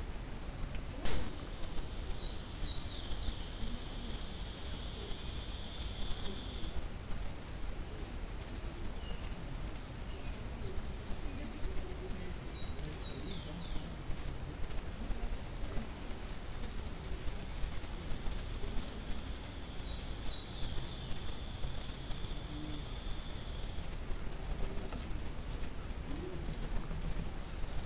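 Steady outdoor hiss scattered with faint ticks, with one sharp click about a second in. A distant high-pitched call comes three times: a few quick falling notes, twice running on into a long, steady whistle of several seconds.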